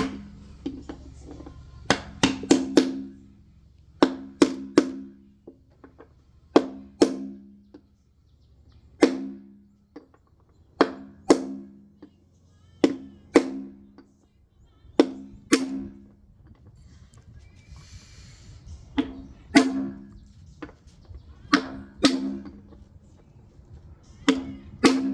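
Hammer blows on metal driving a ball bearing into a washing machine's drum housing. The sharp strikes come singly or in pairs about every two seconds, each ringing briefly.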